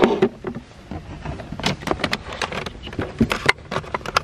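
Kitchen things being rummaged through in a plastic storage box: a quick run of clicks, knocks and rustles as pans, plastic egg cartons and bagged food are moved about by hand.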